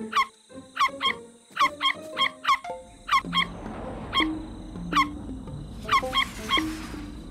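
A run of sharp, high cartoon squeaks, each falling quickly in pitch, about fifteen of them, some in quick pairs, over soft plucked background music.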